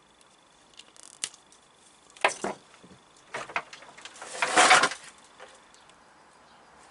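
Hand-tool and wire handling noises: a few sharp clicks, short scrapes, and a louder rattling clatter about four and a half seconds in. A faint steady high whine runs underneath.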